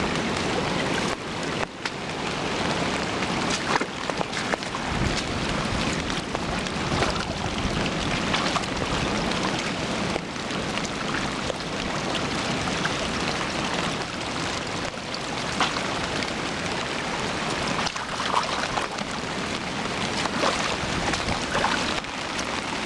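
Flood-swollen river rushing through rapids: a steady, unbroken wash of churning water.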